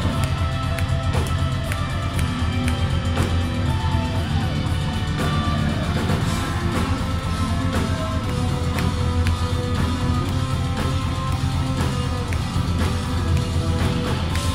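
Melodic death metal band playing live: distorted electric guitars carry a melodic line over heavy bass and drums.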